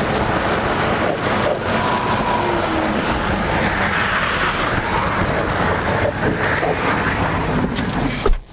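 Steady roar of interstate traffic mixed with wind buffeting a microphone, swelling around the middle as a vehicle goes by. A sharp knock and a brief dropout just before the end.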